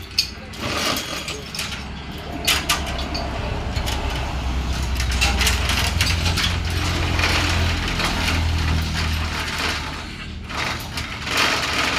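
Hoist chain rattling and ratchet clicking rapidly and without a break as a car engine is lifted, over a low steady hum.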